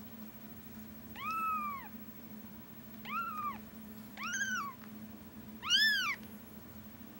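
Palm-sized orange-and-white baby kitten mewing four times, each a short high cry that rises and falls in pitch; the last cry is the loudest.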